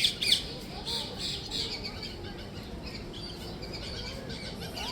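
A flock of parrots and other birds squawking and chirping over one another, with two loud squawks in the first half-second.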